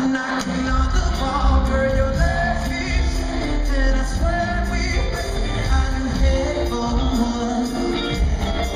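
Live R&B concert performance: a male singer singing into a microphone over the band's backing with heavy bass, heard through the hall's sound system.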